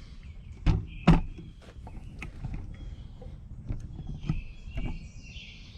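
Two sharp knocks about a second in, then lighter clunks and clicks, over a steady high hiss in the background.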